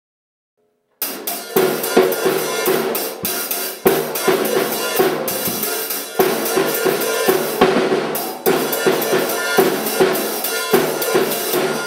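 Acoustic drum kit played in a busy beat, with snare and bass drum hits under ringing cymbals. It starts abruptly about a second in.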